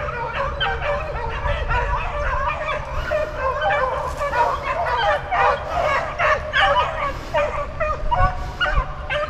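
A pack of beagles baying, many voices overlapping in a continuous chorus, as the hounds run a swamp rabbit's trail.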